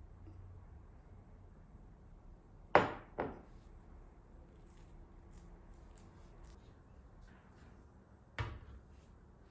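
Sharp knocks of objects set down or struck on a hard kitchen surface: two close together about three seconds in, and one more near the end, over quiet room tone.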